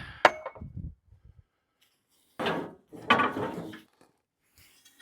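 A digging tool working at the edge of a broken concrete slab: a sharp knock about a quarter second in, then two longer scrapes between about two and a half and four seconds in.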